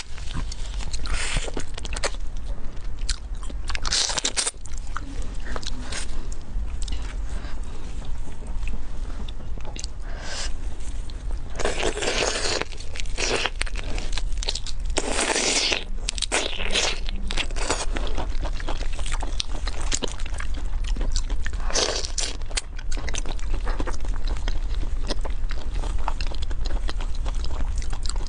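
A person eating whole raw marinated shrimp with the shell on: crunching through the shells and chewing. Several louder bites stand out among the steady run of small crunches.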